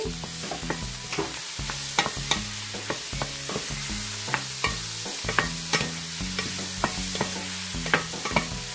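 Mushrooms sizzling in a frying pan of onion, garlic, sun-dried tomato and capers while a spoon or spatula stirs them, with frequent sharp clicks and scrapes of the utensil against the pan.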